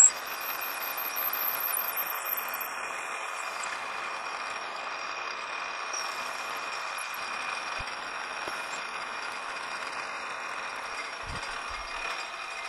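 Metal lathe running while a 17/32-inch drill bit is fed through the spinning workpiece, drilling the tap hole for a 5/8-11 thread: a steady whir with a thin high whine.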